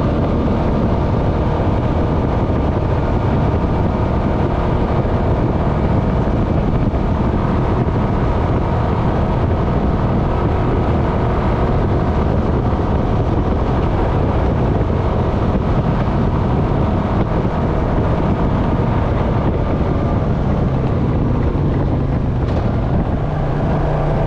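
Honda Foreman ATV running at a steady cruise on a sandy dirt trail, with steady tyre and wind noise over the engine. In the last few seconds the engine note settles into a clearer steady hum.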